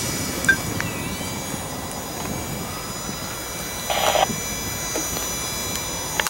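Steady rumble of diesel locomotives some way off, with a brief hiss about four seconds in.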